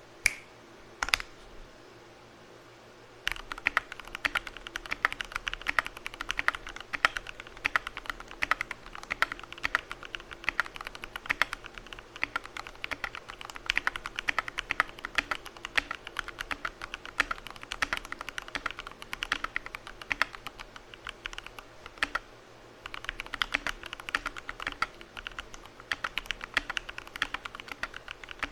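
Mechanical keyboard with lubed Cherry MX vintage black linear switches and XDA keycaps in an acrylic case, typed on fast in a steady stream of keystrokes. A few single key presses come first. The fast typing starts about three seconds in and breaks off briefly about three-quarters of the way through.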